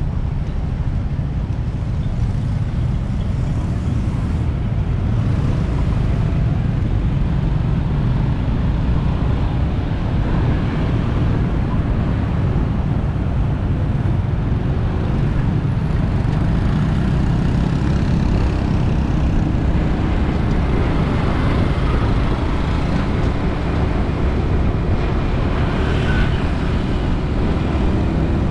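Steady city road traffic noise: a continuous low rumble of engines and tyres.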